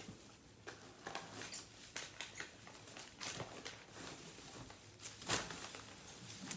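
Rustling and light irregular crackles and knocks of vegetables being handled and lifted out of a cardboard produce box, with one louder crackle about five seconds in.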